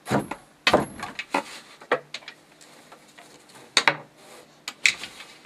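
Vertical wooden hand loom being worked: several sharp wooden knocks and clacks at uneven intervals, with soft rubbing between them.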